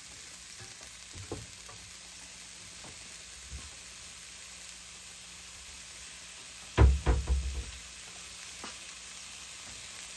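Diced mushrooms frying in a little oil in a nonstick pan, a steady soft sizzle. About seven seconds in, a short run of knocks and thumps.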